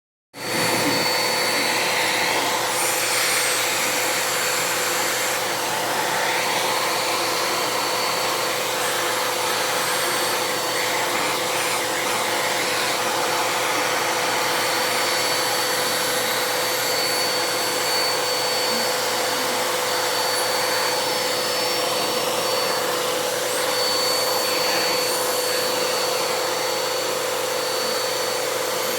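Vacuum cleaner running steadily: a constant rush of air with a steady whine, unbroken throughout.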